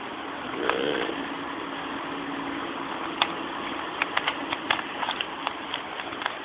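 Rubik's cube faces being twisted by hand: short plastic clicks, scattered at first, then coming about three a second in the second half.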